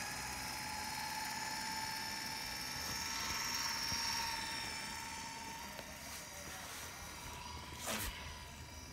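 Can motor and reduction gearing of a brass HOn3 model diesel locomotive whining steadily as the model crawls along the track, loudest about halfway through and then fading. A single knock near the end.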